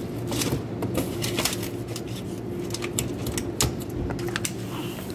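Irregular light clicks and knocks over a steady low hum of shop machinery, the kind of handling noise heard while shopping.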